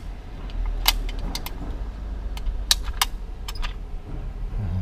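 Sharp metallic clicks from a wall-mounted combination key lock box being worked by hand, about ten irregularly spaced clicks as the code is set and the box opened, over a low rumble.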